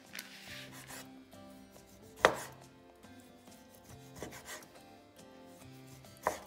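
Chef's knife slicing raw chicken breast on a wooden cutting board, the blade knocking sharply on the board: three knocks, the loudest about two seconds in and again near the end, over soft background music.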